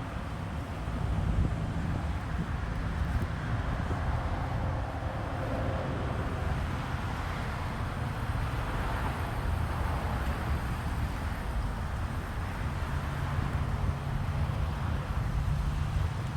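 Road traffic passing, with wind buffeting the microphone: a steady, noisy rumble that swells and fades as vehicles go by.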